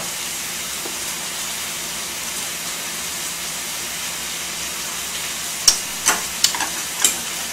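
Pork belly and kimchi frying in pork fat, a steady sizzle, with a few sharp clicks near the end.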